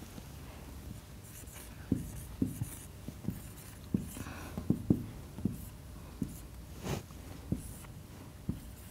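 Marker pen writing figures on a whiteboard: a string of irregular sharp taps and short scratchy strokes as each digit is drawn.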